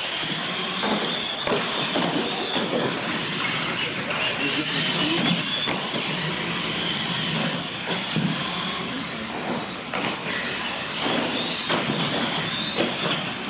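R/C monster trucks accelerating flat out on concrete: a steady high electric-motor and gear whine over tyre noise, with scattered knocks as the trucks bounce over the launch ramps.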